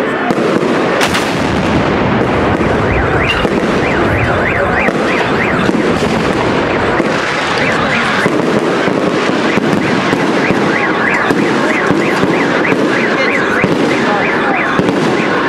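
A fireworks salute bursting and crackling in a dense, continuous barrage, with a sharp bang about a second in. Runs of short, high chirps rise and fall several times a second through much of it.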